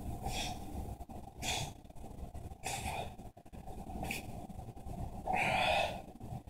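A man breathing hard in short forceful exhales, one with each inverted row, about five in all at an even pace; the last one, near the end, is longer and louder.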